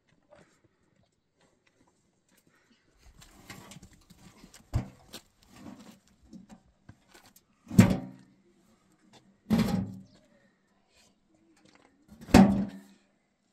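A shovel scraping and knocking against a tipped-up metal wheelbarrow tray as its load is emptied onto a pile: scraping starts about three seconds in, then four loud hollow clanks a couple of seconds apart.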